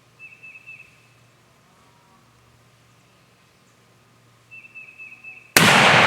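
A shotgun fires a single loud shot about five and a half seconds in, ringing out afterwards: the shot at a turkey gobbler. Before it, two short runs of quick high chirping notes are heard, near the start and again shortly before the shot.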